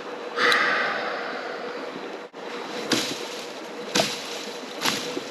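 Creek water running steadily, with a brief whizz about half a second in that fades away, and a few sharp clicks later on.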